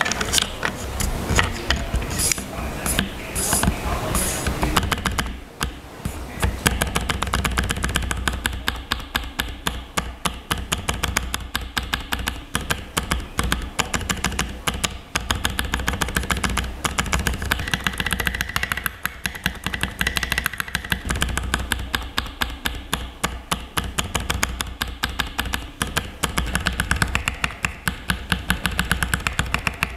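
Wooden SA-profile spacebar keycaps on a mechanical keyboard being pressed over and over, giving sharp clacks. The first few seconds hold irregular clicks as a keycap is fitted, then about six seconds in the presses settle into a fast, even run of several clacks a second.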